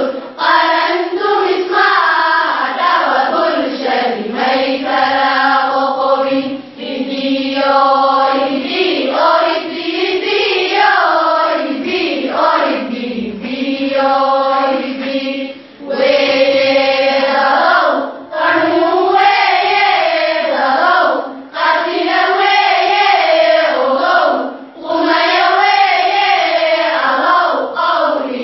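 A group of girls singing a song together in unison, in sung phrases of a few seconds each, with short breaks between phrases.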